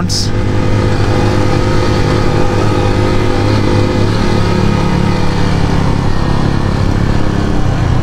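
Motorcycle engine running steadily at low speed while the bike rolls down a road, a constant low engine note.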